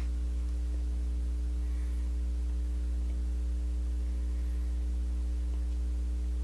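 Steady low electrical hum, like mains hum, with a few faint ticks.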